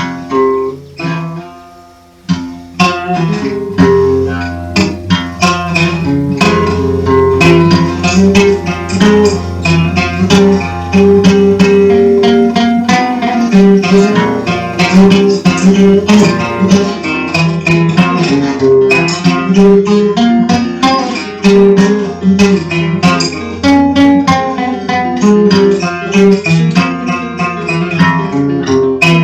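Instrumental dark folk music: fast plucked and strummed acoustic guitar over a low sustained drone, starting with a few sparse notes and filling out about two to three seconds in.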